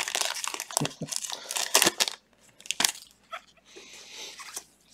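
Foil trading-card pack wrapper crinkling and tearing as gloved hands rip it open, busiest over the first two seconds, then a few scattered rustles.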